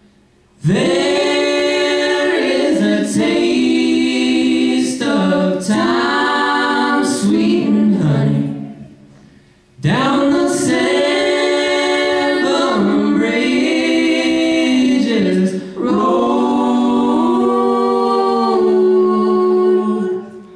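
Three voices, two male and one female, singing close harmony a cappella, in two long phrases with a short silent pause between them, the last chord held out.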